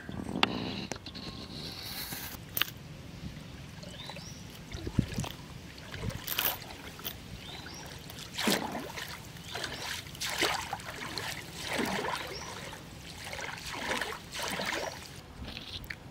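Pond water splashing and sloshing in repeated surges every second or two.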